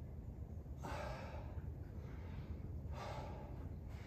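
A man breathing hard from exertion, with two long, airy exhales about a second in and about three seconds in, over a steady low hum.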